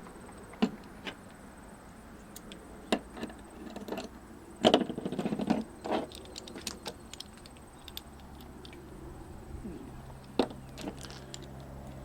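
Sharp clicks and a short burst of metallic clatter from pressure-washer hose fittings and quick-disconnect parts being handled, with the loudest clatter about four to six seconds in.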